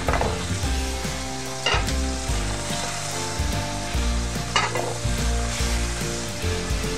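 Pork chops sizzling in hot oil in a pan as they are laid in to brown. The sizzle flares up briefly twice, about two and four and a half seconds in, as more chops go in.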